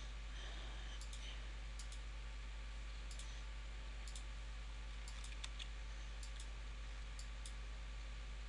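Computer mouse clicking: short sharp clicks, often in quick pairs, about once a second at irregular intervals, over a steady low electrical hum and hiss.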